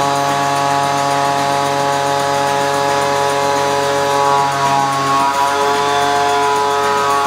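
Tormach 770 CNC mill milling an aluminum block under coolant spray: a loud, steady machining whine made of several tones, which shifts in pitch about five seconds in.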